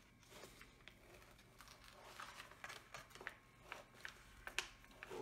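Faint rustling and crinkling of a diamond painting canvas's cover paper being lifted and smoothed by hand, with scattered soft ticks and one sharper click about four and a half seconds in.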